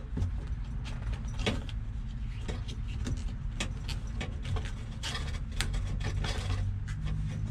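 Plastic wiring connectors on a car's fuel pump being unclipped and handled: scattered light clicks and rustles over a steady low hum.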